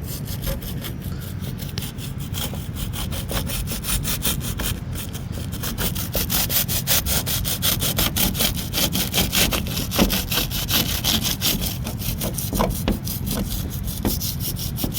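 Quick, even back-and-forth sawing strokes of a hand tool, about five a second, most likely a cutter blade trimming cured expanding foam flush with the car's body panel.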